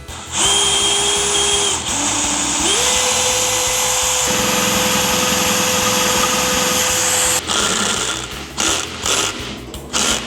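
Electric drill drilling out the lock of a cast-iron Northwestern Model 60 gumball machine. It runs in short bursts at changing speed, speeds up about three seconds in and holds there, then stops about seven seconds in, followed by scattered knocks and rattles.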